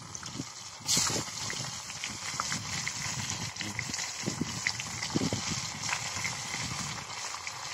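Seasoned small fish deep-frying in hot oil in a pot over a wood fire: a steady sizzle that jumps up sharply about a second in, with scattered small pops and crackles.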